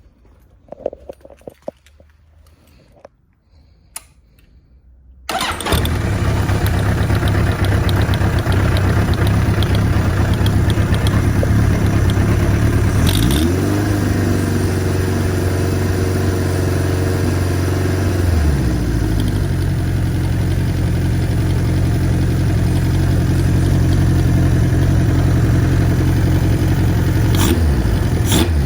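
Kawasaki Z1-R's air-cooled inline-four engine starting suddenly about five seconds in after a few faint clicks, then running. It is held at higher revs for about five seconds midway and blipped near the end. It is an engine that is noisy in both the top end and the bottom end, the abnormal noise it was sent in to have repaired.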